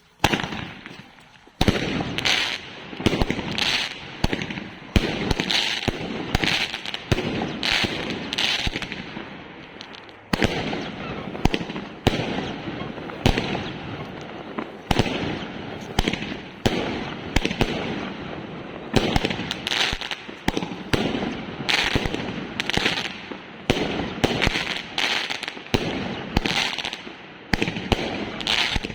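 Fireworks going off in a rapid, irregular barrage of bangs and crackles, several a second with hardly a pause.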